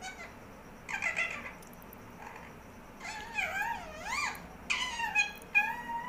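Indian ringneck parakeet calling in a high, squeaky voice. There is one call about a second in, then a run of calls with wavering, rising and falling pitch from about three seconds on.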